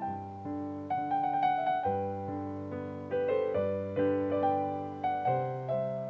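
Background piano music: a melody of single struck notes over lower chords, each note fading after it is struck.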